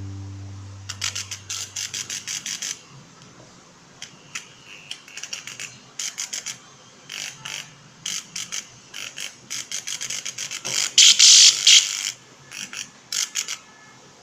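Rapid mechanical clicking in irregular bursts of several ticks each, the loudest burst about three quarters of the way through.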